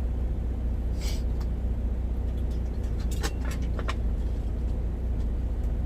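Steady low drone of an idling engine, with a few brief clicks and knocks about a second in and again around three seconds in.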